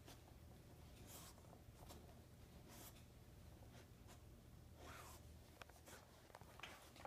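Faint, short scratchy rustles, irregularly a second or two apart, with a few light clicks: a black Labrador puppy nosing and pushing a fleece blanket over a bone on a couch.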